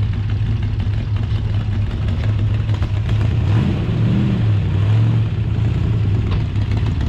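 Classic C2 Corvette Sting Ray's V8 engine rumbling at low speed as the car rolls slowly past. There is a brief rise and fall in engine pitch about halfway through.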